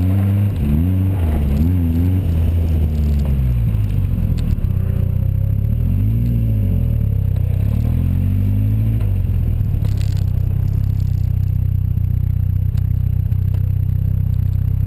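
Engine of an open-cockpit, Seven-style sports car, heard from the driver's seat. Its revs rise and fall several times as it is driven through a cone course. After about nine seconds it settles into a steady, even note.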